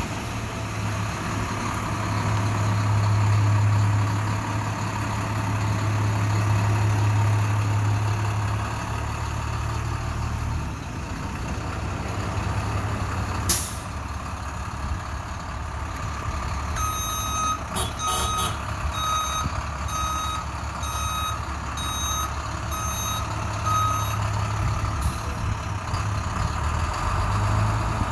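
IC school bus's diesel engine running with a steady low hum, louder at first and again near the end, with one sharp short burst of noise about halfway. Its backup alarm then beeps about once every 0.8 seconds for around seven seconds.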